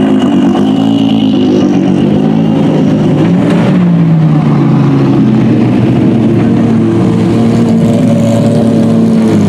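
GT race car engines, from cars such as a Lamborghini GT3 and a Porsche 911 GT3, running at low revs as the cars pass by. One engine's pitch falls a few seconds in, then holds steady.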